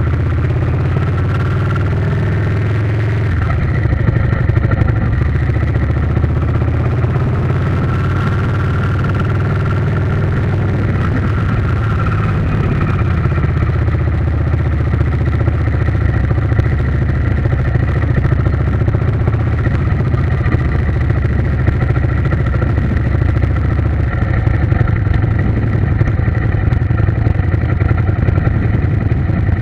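A vehicle's engine running steadily at an even speed, with a faint wavering whine above the low rumble.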